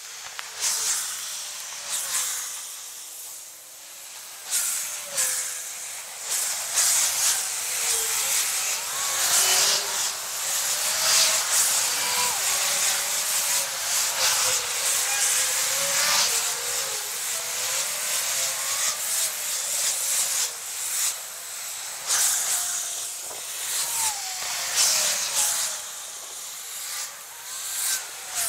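Road traffic on a dual carriageway, sped up fourfold so the passing vehicles come through as a high-pitched rushing hiss that swells and fades again and again.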